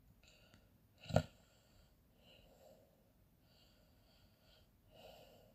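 A man breathing quietly between sentences, with one short sharp click about a second in.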